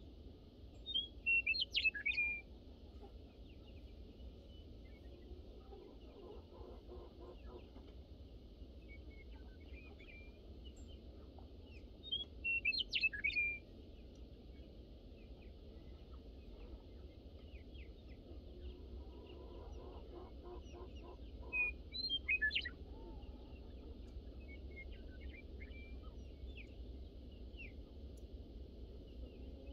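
Birds chirping in three short loud bursts about ten seconds apart, with scattered fainter chirps and soft chicken clucking between them.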